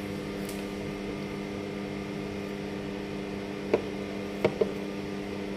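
Steady low hum in the room, broken by a sharp tap a little before four seconds in and two quick taps about half a second later, as a finger handles the GoPro Hero 10 and taps its touchscreen.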